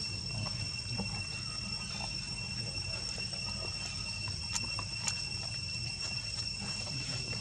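Steady insect drone of two held high-pitched tones over a low rumble, with a couple of faint clicks about four and a half and five seconds in.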